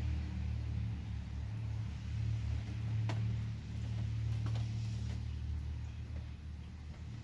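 A steady low hum of a running motor, with a few faint clicks about three and four and a half seconds in.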